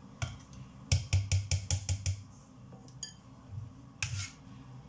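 Metal spoon knocking and scraping against a stainless steel Thermomix bowl while scooping out thick chicken-stock paste: a quick run of about six taps around a second in, then a few single knocks.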